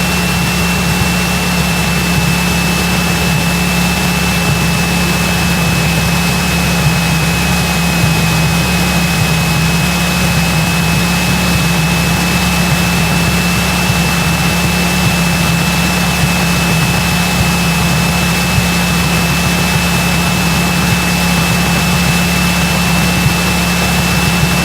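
Cessna 172's piston engine and propeller droning steadily inside the cockpit at reduced approach power, with a thin steady high whine over the drone.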